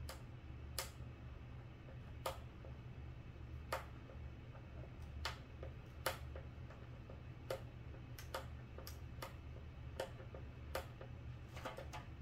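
Small screws being hand-driven into a model airplane wing with a screwdriver: irregular sharp clicks, roughly one a second, with a quick cluster near the end, over a low steady hum.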